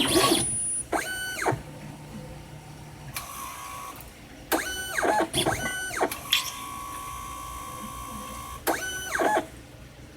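Autostainer 360 slide stainer's robotic arm moving in short motor-driven strokes: about four motor whines that rise and then fall in pitch, with a steady electric hum between moves.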